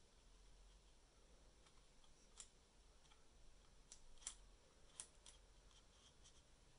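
Near silence, with a handful of faint sharp clicks and ticks between about two and five seconds in: fingers and a small pin handling the plastic housing of a video doorbell while its reset button is held down.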